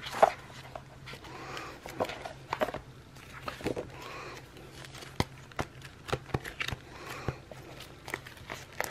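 Sticker sheets and paper being handled and searched through: scattered light taps, clicks and paper rustles, over a low steady hum.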